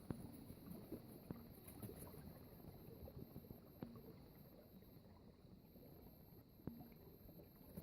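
Faint gurgling and trickling of a stream running beneath ice, with a few sharp clicks.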